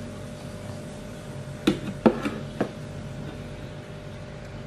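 Three short, sharp clicks in quick succession a little under two seconds in, over a faint steady hum: hands working grated coconut in an enamel plate, with fingers or the plate knocking against the enamel.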